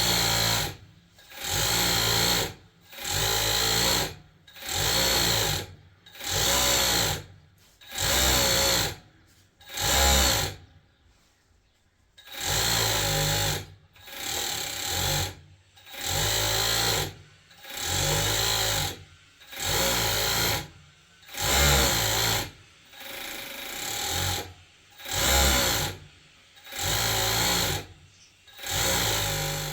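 Electric sewing machine running in repeated bursts of about a second each, stopping briefly between runs, with a longer pause about ten seconds in.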